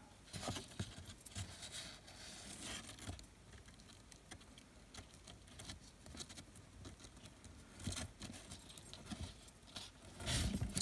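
Braided Venetian blind cord sliding and rubbing against fingers as it is wound round them, a faint rustling with scattered small clicks. Louder rustles come about eight seconds in and again near the end.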